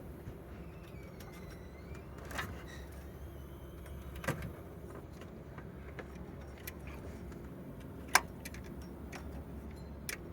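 Scattered clicks and knocks of tools and engine parts being handled as a timing belt and tensioner are fitted, over a steady low hum. The sharpest knock comes about eight seconds in.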